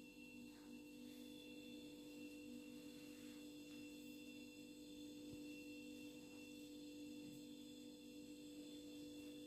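Near silence: room tone with a faint steady electrical hum.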